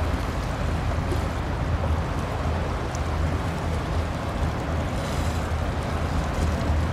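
Large patrol ship PLH21 Fuso passing close by: a steady low drone from its engines with the rush of its bow wave and water along the hull.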